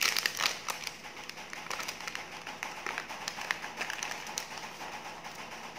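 Plastic wrapper on a box of cheese portions being torn open and peeled off by hand, crinkling in a dense run of crackles, loudest right at the start.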